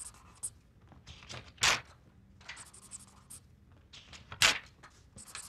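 Scattered short scratching strokes, two of them louder, about a second and a half in and again about four and a half seconds in.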